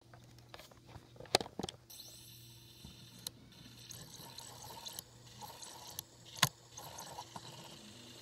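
CD player mechanism running with a steady low hum, broken by a few sharp clicks; the loudest clicks come about a second and a half in and about six and a half seconds in.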